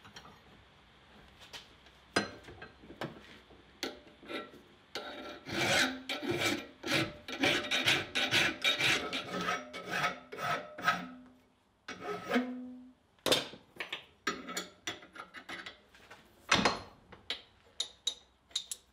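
Hand file scraping back and forth over the forged steel nutcracker, about two strokes a second for several seconds, with metal clinks and knocks of the piece being handled before and after.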